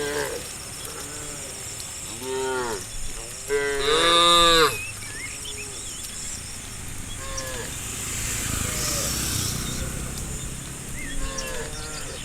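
Cows mooing: a short moo about two seconds in, then a louder, longer moo about three and a half seconds in, with fainter calls here and there after it.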